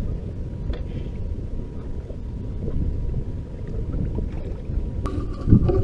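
Uneven low rumble of wind buffeting the microphone on a fishing boat at rest, with water against the hull and a faint steady high whine. A low knock comes near the end.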